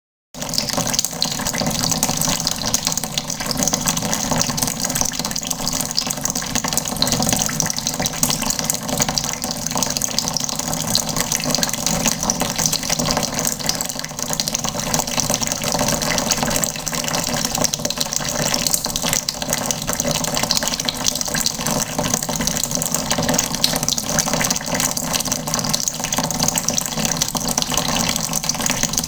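Water running steadily from a tap into a plastic bucket, a constant splashing rush.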